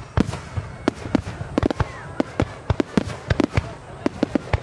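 Aerial firework shells exploding in quick succession: a dense, irregular string of sharp bangs, some much louder than others, over a steady low rumble.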